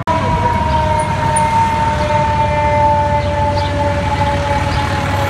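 Fire truck siren wailing on two steady tones that slowly fall in pitch, over the low rumble of engines and traffic.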